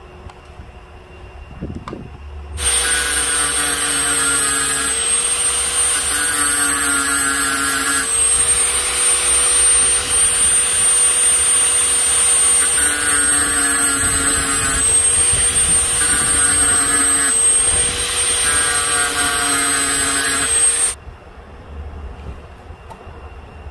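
Angle grinder running, its disc grinding the steel shaft in several passes to make the spot where the shaft is gripped, so the part won't slip and spin. A steady high whine comes in about two and a half seconds in and cuts off suddenly near the end.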